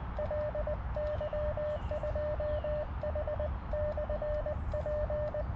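Morse code (CW) sidetone from a portable HF transceiver being keyed: a clean, mid-pitched beep switched on and off in dots and dashes, in several groups with short gaps, as the operator transmits to another station.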